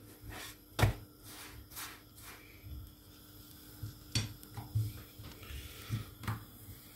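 A few short knocks and taps from handling at a frying pan where lavash is cooking, the loudest about a second in, over a faint steady hum.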